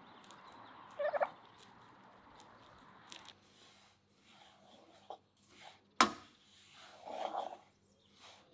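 A barnyard fowl giving a short, rattling call about a second in, with a softer call later. A single sharp knock, the loudest sound, comes about six seconds in.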